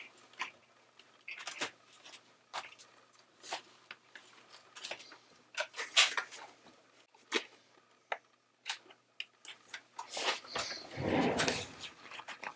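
Handling noises of a motorcycle helmet as its foam interior liner is pushed back into place: scattered light clicks, taps and rustles, with a longer rustling scrape near the end.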